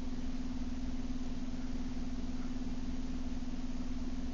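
Steady background hum: one constant low tone over an even hiss, with no change.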